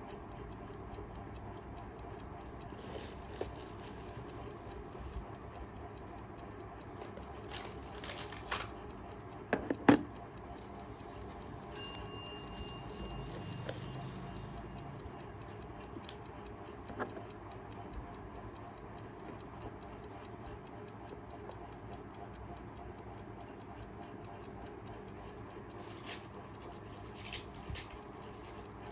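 Kaiser 4 Rubis travel alarm clock ticking rapidly and steadily, its movement running again. A few louder knocks come about eight to ten seconds in, the loudest near ten seconds, followed by a brief ringing tone.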